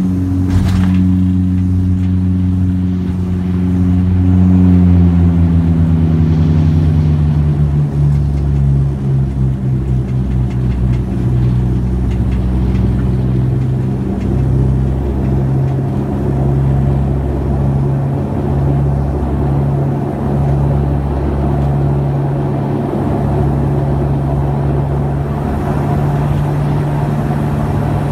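Saab 340's twin turboprop engines and propellers heard from inside the cabin while rolling on the runway after landing. Their droning tone drops in pitch about three to eight seconds in, then holds steady over a low rumble.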